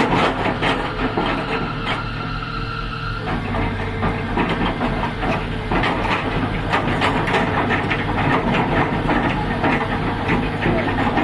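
Tata Hitachi crawler excavator at work: its diesel engine runs steadily while the bucket and arm give frequent clanks and knocks. The loudest knock comes right at the start.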